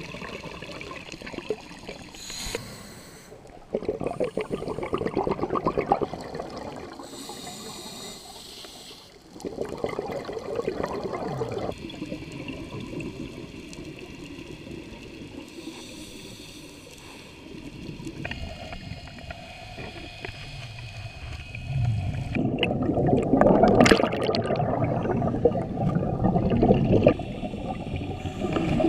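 Scuba regulator breathing heard underwater: a thin hiss of inhaling, then a rough, gurgling rush of exhaled bubbles, repeating every few seconds. Near the end, the bubble rush is longer and louder.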